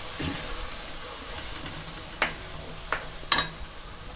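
Ground masala paste sizzling as it fries in oil in an aluminium kadhai, stirred with a plastic spatula. Three sharp clicks come a little after two seconds, near three seconds and just after three seconds, the last the loudest.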